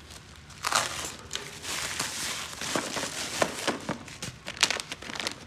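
Plastic packaging crinkling and rustling in irregular crackles as a poly mailer bag is opened and a case in a clear plastic bag is pulled out and handled.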